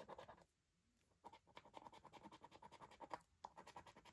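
A coin scratching the latex coating off a paper scratchcard in faint, rapid short strokes. The strokes pause briefly about half a second in and again a little after three seconds.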